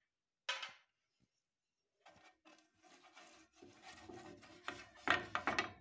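A hand rubbing oil around the surface of a speckled non-stick frying pan: irregular rubbing and scraping strokes that grow louder toward the end. A single short, sharp sound comes about half a second in.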